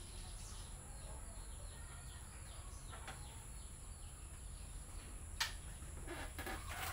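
Faint outdoor ambience: small birds chirp over and over, short falling notes, over a steady low hum. A single sharp click comes about five and a half seconds in.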